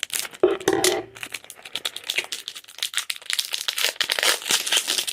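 Foil Pokémon card booster pack wrapper being crinkled and torn open by hand: a dense, irregular run of crinkles.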